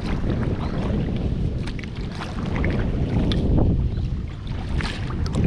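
Kayak paddle strokes splashing through the water, about one every second and a half, under a steady rumble of wind on the microphone.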